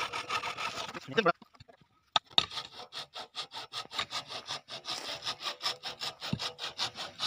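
The facing tool of an HDPE butt-fusion machine shaving the ends of a 90 mm HDPE pipe and tee flat before heat fusion. It makes a fast, even rasping of about six strokes a second, stops for about a second near the start, then resumes.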